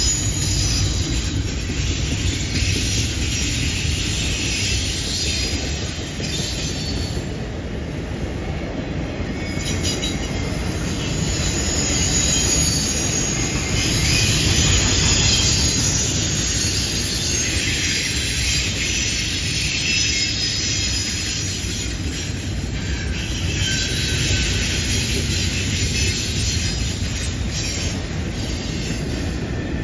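Double-stack container well cars of a freight train rolling past on a curve: a steady rumble of wheels on rail, with high-pitched wheel squeal coming and going.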